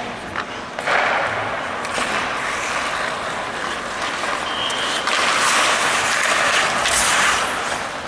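Ice hockey skates scraping and carving across the ice, a steady hiss that grows louder about five seconds in.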